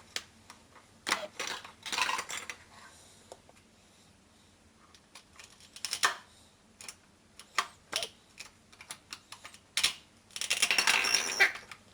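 Toy food pieces and a toy knife clicking and clacking together in scattered taps, with two short rasps of Velcro tearing as the toy fruit and vegetable halves are pulled apart, about a second in and again near the end.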